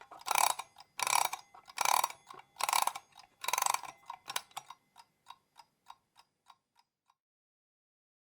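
Mechanical wind-up alarm clock being wound, about six loud ratcheting strokes, followed by its ticking at about three ticks a second that grows fainter and stops about seven seconds in.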